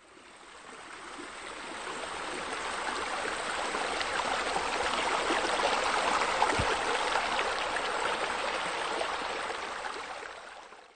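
Steady splashing of water pouring from pool water features (bowl scuppers and sheer descents) into a swimming pool. It fades in over the first couple of seconds and fades out near the end.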